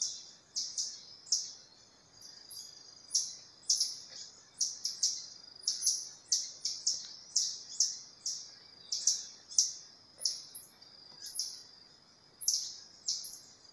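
Rapid series of short, sharp, high-pitched chirping calls, two to three a second, each sweeping quickly downward. They come from small forest animals near a bait station, calling after noticing the person watching.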